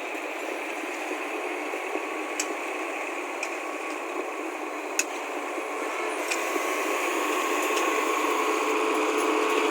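Heavy road-construction machine running as it works the soil, a steady noisy rumble with scattered clicks, growing louder in the second half.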